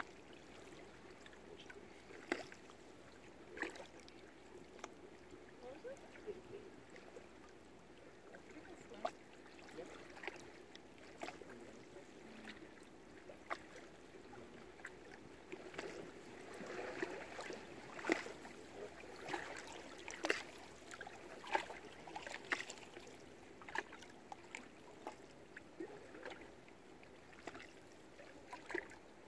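Water lapping against moored boats: faint, irregular small splashes and clicks over a quiet steady background, busiest about halfway through.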